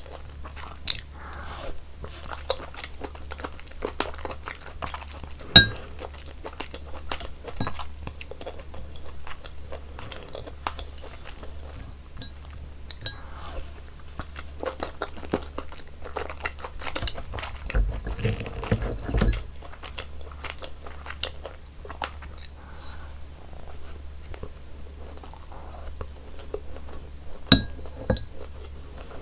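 Close-miked chewing and eating of beef seaweed soup with rice, with scattered sharp clicks throughout; the loudest is about five seconds in and another comes near the end.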